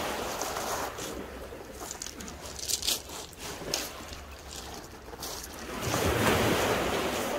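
Small waves breaking and washing up a shingle beach, swelling near the start and again about six seconds in. There are a couple of short sharp clicks in between.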